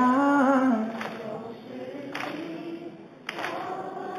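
A man singing into a microphone holds a wavering note at the end of a line, which stops about a second in; fainter voices follow.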